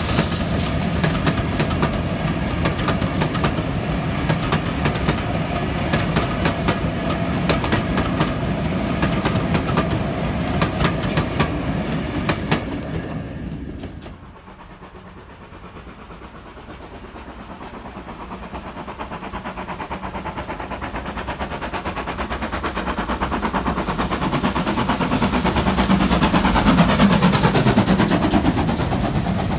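Vintage passenger coaches rolling past behind a GWR 4-6-0 steam locomotive, wheels clicking rapidly over the rail joints. About halfway through the sound drops off suddenly, and a second steam-hauled train grows steadily louder as it approaches, its locomotive, GWR Hall class 4930, passing close near the end.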